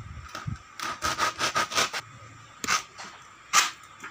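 A styrofoam block scraping and squeaking in a quick run of short strokes, then two louder separate scrapes near the end.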